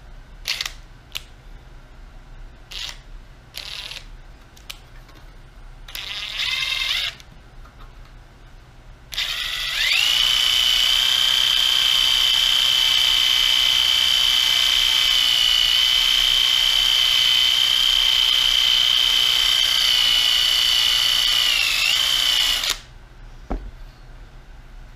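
Cordless drill with a polishing pad buffing a plastic gauge-cluster lens to take out hairline scratches. After a short burst, it spins up and runs for about thirteen seconds as a steady high whine, dips slightly and then cuts off. A few light handling clicks come before it.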